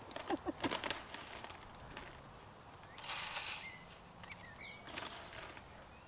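Dried mealworms poured from a plastic bag into a plastic-bottle bird feeder, one short pour about three seconds in, with faint bird chirps just after.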